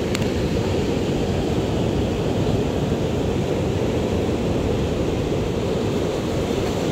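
Steady low roar of wind and sea surf.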